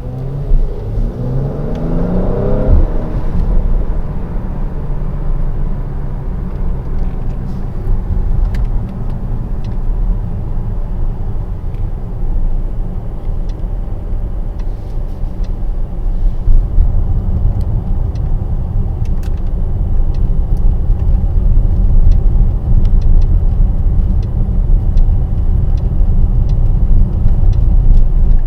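Mercedes-AMG GLC 43's twin-turbo V6 and road noise heard from inside the cabin while driving; the engine note rises over the first few seconds as the car accelerates, then settles into a steady low rumble that grows louder in the second half.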